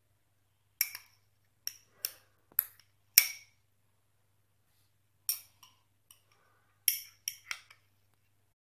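Metal spoon clinking against a small glass bowl while scooping out ghee: about a dozen short, sharp taps in two bunches, the loudest about three seconds in.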